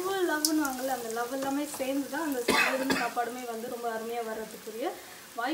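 Spices, curry leaves and dried chillies frying in oil in an aluminium kadai, stirred with a metal spatula: sizzling and scraping, with a clank of the spatula against the pan about two and a half seconds in. A continuous wavering pitched sound runs beneath it.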